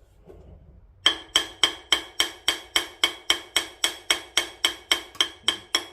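Light hammer taps, metal on metal, about three or four a second, each with a short ringing note, starting about a second in: persuading the slip-fit harmonic balancer off the crankshaft of a turbo Buick V6, which is moving under the taps.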